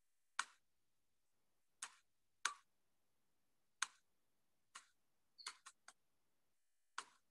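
About ten short, sharp clicks spaced irregularly over near silence, with a quick run of four about five and a half seconds in: someone clicking away while working a laptop.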